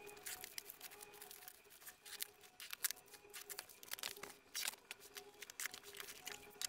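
Utility knife slicing through plastic stretch wrap and packing tape on a parcel, with irregular crackling and rustling of plastic film and cardboard as the wrapping is torn off and the box flaps are opened.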